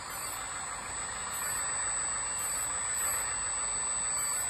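LESU 1/14 scale hydraulic RC loader running with its hydraulic pump on while the steering, arm and bucket are worked, a steady mechanical whirring noise.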